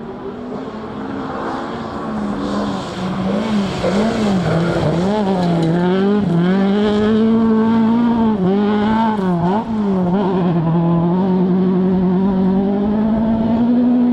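Rally car engine running at high revs and growing louder as the car approaches, its revs dropping and climbing again several times.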